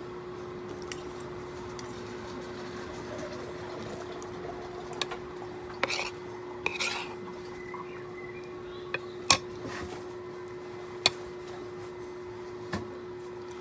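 Fork and spoon clinking and scraping against a bowl during a meal: a handful of scattered sharp clinks, the loudest about nine seconds in.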